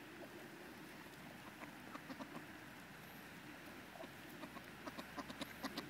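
Mallards and white domestic ducks feeding on cereal: faint short clicks and soft calls, bunched more closely in the last second.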